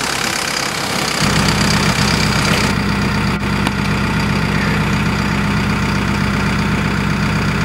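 Fendt 209 V tractor with an Ilmer LMG 245 linear mulcher: a mixed working noise for about the first second, then a steady, even engine hum close by.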